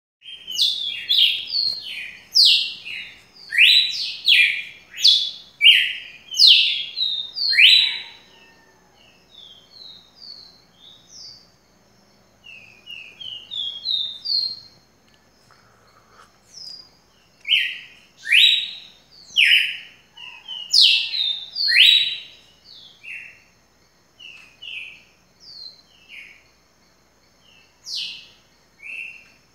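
Songbirds singing: two bouts of loud phrases made of quick, falling whistled notes, with softer chirps and short notes from other birds in between.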